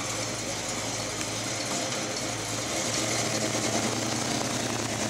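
1968 Chevrolet Chevelle SS 396's big-block V8 running at low speed as the car rolls slowly past, a steady, lumpy exhaust note that grows a little louder about three seconds in.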